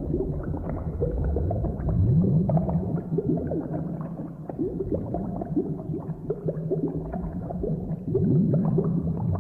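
A cauldron of thick liquid boiling, with dense low bubbles gurgling and popping without a break. It grows louder about two seconds in and again near the end.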